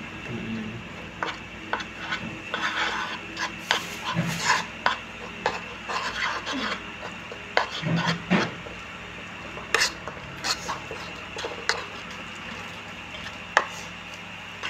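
A spoon stirring curry and chilli powder into hot water in a bowl, mixing it into a paste, with irregular scraping and sharp clinks of the spoon against the bowl.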